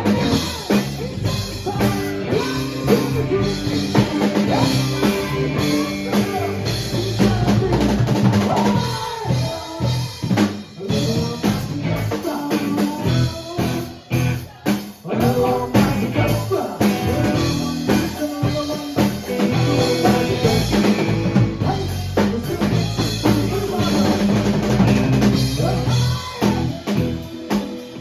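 Live rock band playing an instrumental passage, the drum kit's bass drum and snare beating out a steady rhythm over bass and guitar.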